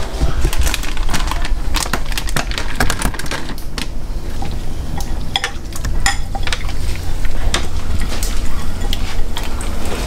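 Brown paper grocery bag crinkling and rustling as frog legs are shaken in seasoned flour inside it to coat them: an irregular run of crackles.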